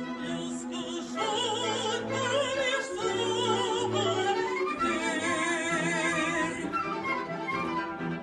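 Operatic female voice singing with wide vibrato over an ensemble of flute, violin, viola and cello. The strings hold sustained notes. The voice enters about a second in and holds long notes until near the end, with a rising glide in the middle.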